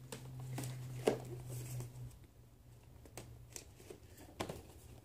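Scattered light taps and rustles of cardboard and plastic action-figure packaging being handled, over a low steady hum during the first two seconds.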